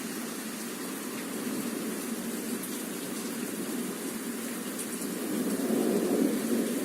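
Heavy rain pouring down in a thunderstorm, a steady rushing hiss that swells louder about five seconds in.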